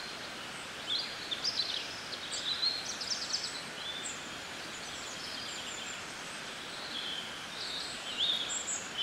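Outdoor garden ambience: a steady background hiss with birds chirping, high short calls clustered about a second in to three and a half seconds and again near the end.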